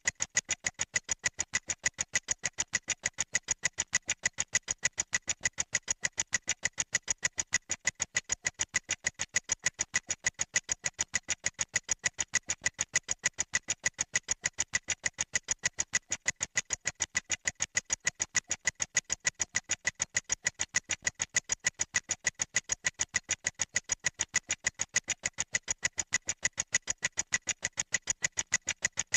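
Suspense sound effect for a prize draw: rapid, evenly spaced clock-like ticking, about six ticks a second, steady throughout.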